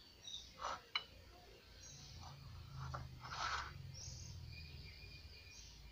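Faint scrapes of a knife cutting through a soft steamed pusnambo cake on a plate, about a second in and again about three and a half seconds in. A few faint high chirps from birds sound behind them.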